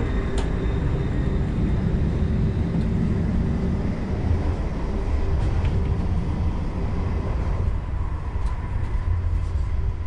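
Steady low rumble of a moving double-deck electric train heard from inside the coach, with a few faint clicks.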